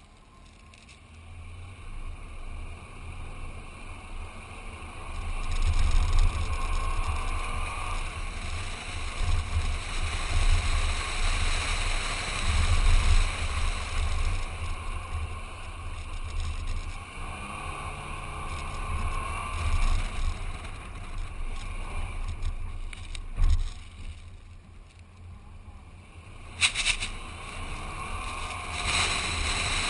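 Wind rushing and buffeting over an outside-mounted GoPro on a Toyota Land Cruiser Prado driving fast over sand dunes, with the engine rising and falling underneath. It grows louder about a fifth of the way in, eases off for a couple of seconds late on, and has a couple of sharp knocks near the end.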